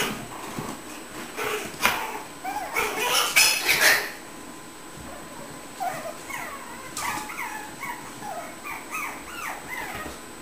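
Puppies whimpering and yipping: a quick run of short, high, falling cries in the second half. Before that there are a few knocks and scuffling.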